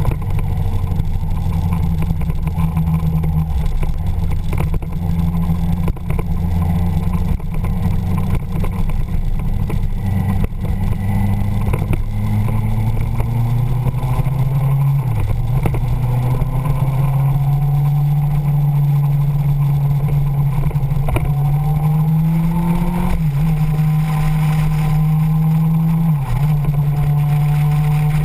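Motorcycle engine running under way, holding a steady speed at first, then climbing in pitch as it accelerates, with brief drops at gear changes about halfway through and twice near the end.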